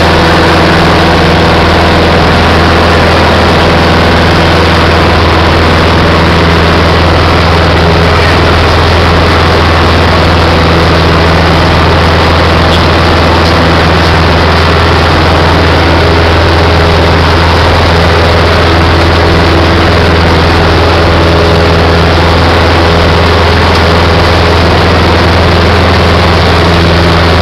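Robin light aircraft's piston engine and propeller running steadily, a loud even drone heard from inside the cabin.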